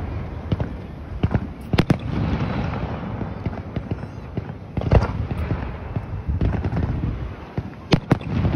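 Fireworks display: a continuous crackle of bursting shells and sparks, broken by sharp bangs. A close pair comes about two seconds in, the loudest single bang about five seconds in, and another pair near the end.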